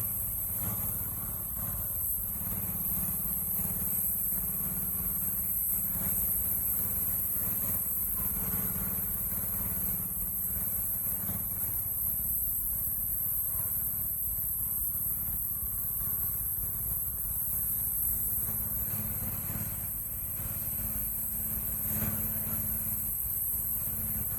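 Pressure washer running steadily: a low, even motor hum with a high hiss over it.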